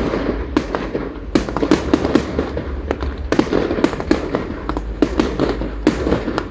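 Aerial fireworks display: many shells bursting in quick, irregular succession, sharp bangs over a continuous din of further bursts.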